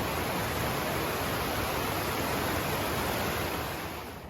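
A mountain stream rushing steadily at a water crossing. The sound drops off sharply about four seconds in.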